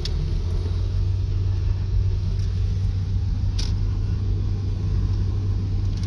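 Steady low rumble of an SUV driving slowly on a gravel road, heard from inside the cabin, with a couple of light knocks.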